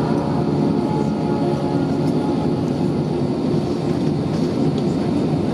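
Airbus A320 with IAE V2500 engines taxiing at idle thrust, heard from inside the cabin over the wing: a steady hum with several held tones and no change in pitch.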